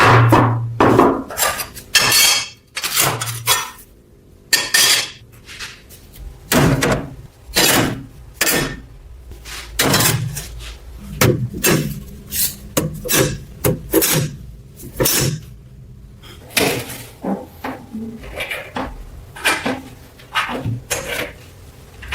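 Metal pieces clinking and knocking against each other and a hard surface in an irregular series of sharp strikes, as small metal parts are handled and worked.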